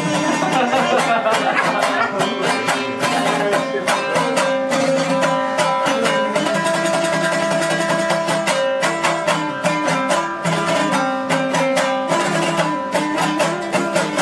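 Hazaragi dambura, a two-string long-necked Afghan lute, strummed in a fast instrumental passage: quick, evenly repeated strokes carrying a shifting melody.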